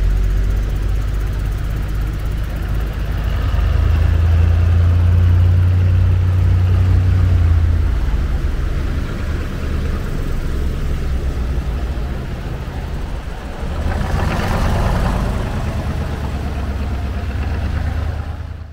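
Expedition truck's diesel engine running steadily on a dirt mountain track. Its low drone swells louder from about four to eight seconds in, and a brief rush of noise comes about fourteen seconds in.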